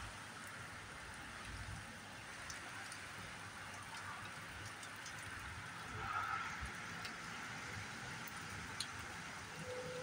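Steady rain falling on tree leaves, with a few sharper individual drops ticking close by and a brief rise in the rush about six seconds in.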